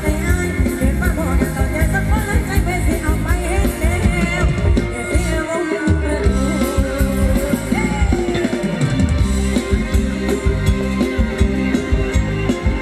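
Live band playing Thai ramwong dance music with a singer over a steady beat.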